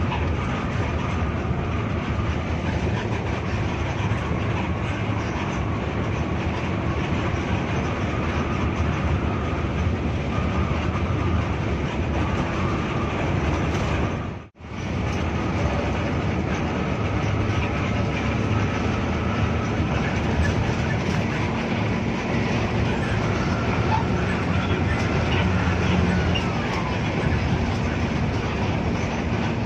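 Inside a Hino RK8 R260 diesel coach at highway cruising speed: steady engine drone mixed with tyre and road noise through the cabin. The sound drops out briefly about halfway through.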